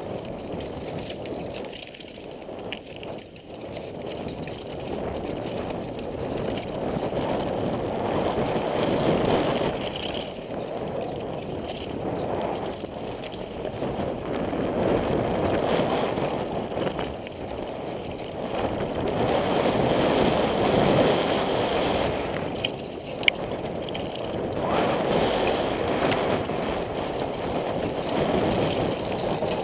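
Mountain bike descending a dirt singletrack heard from a helmet camera: wind rushing over the microphone together with tyre and frame rattle, swelling and fading with speed. One sharp click comes a little past three quarters of the way through.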